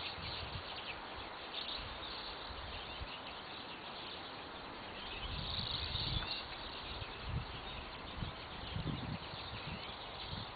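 Small wild birds chirping and calling over a steady outdoor background hiss, with low rumbles now and then.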